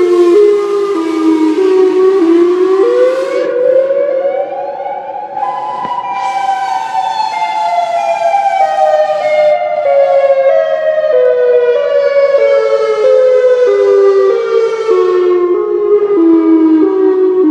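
Outdoor tornado warning siren sounding a loud two-note wail that wavers in small steps. Its pitch jumps up about three seconds in, then slowly falls again.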